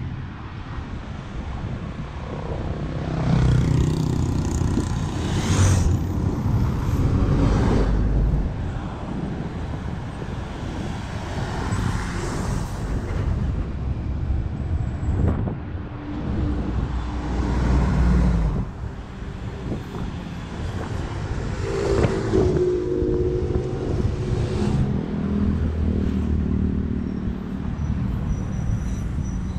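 Road traffic on a busy city avenue: cars and city buses passing one after another, each engine and tyre noise swelling and fading away.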